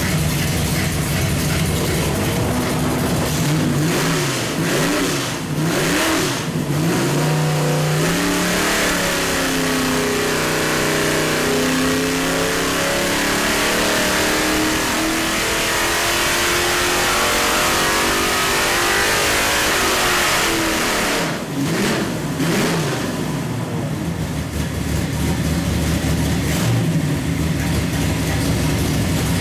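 Small-block Chevrolet 383 stroker V8 with a tunnel ram intake and dual carburetors running on an engine dyno. It is revved briefly a few times, then pulls under load with the revs climbing steadily for about twelve seconds. It is let off a little after twenty seconds in and settles back to idle.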